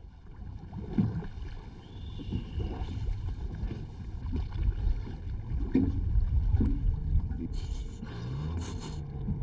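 A boat's engine running at sea, a low, steady rumble. Short gusts of hiss come and go near the end.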